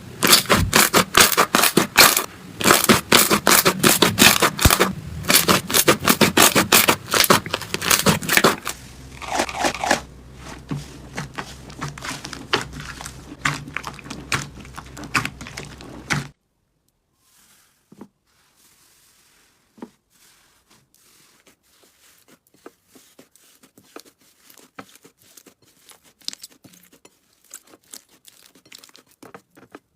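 Slime being squeezed and worked by hand, giving dense, loud crackling and popping, then quieter crackles over a low hum. About halfway through it cuts to a much softer clip of sparse small clicks and pops.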